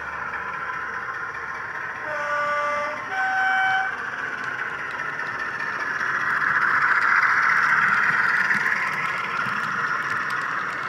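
Model diesel locomotive's DCC sound decoder sounding a two-tone horn, a lower note then a higher note, each under a second long, about two seconds in. The train's running sound then swells, loudest around seven to eight seconds in as it passes close.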